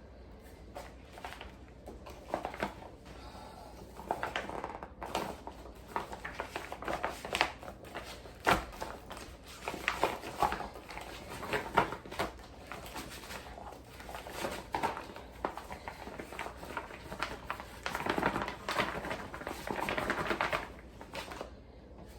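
Hands kneading raw chicken pieces with oil and seasoning inside sealed silicone freezer bags: an irregular run of squelches, squishes and bag rustling, busier in the second half.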